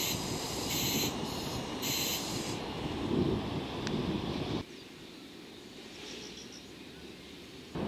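Chiki flat wagons loaded with long rails rolling past: a steady low rumble of wheels on track, with short high-pitched bursts about once a second in the first two seconds. A little over halfway through it drops suddenly to a much quieter rumble.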